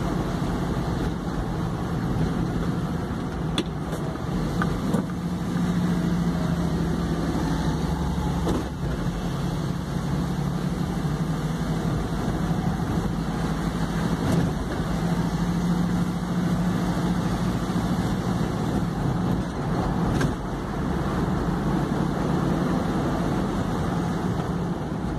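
Vehicle engine running steadily with tyre and road noise, heard from inside the cab while driving.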